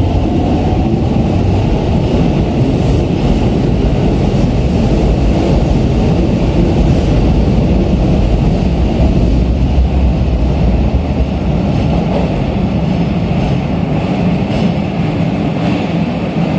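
Two electric commuter trains, a Keikyu 600 series and a Keisei new 3000 series, pull out of the station together. Their wheels and running gear make a loud, steady rumble on the rails, which eases a little near the end as they move off.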